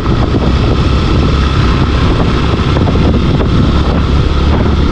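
Motorcycle engine running steadily at about 35 km/h, with wind rushing over the microphone.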